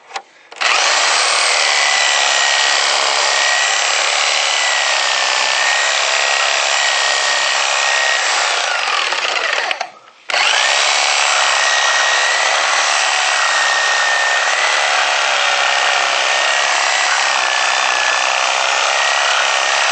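Reciprocating saw with a metal-cutting blade running at full speed, cutting through hidden screws that hold a deck board to the beam, with a steady whine over the noise of the cut. It starts about a second in, stops briefly halfway through and starts again.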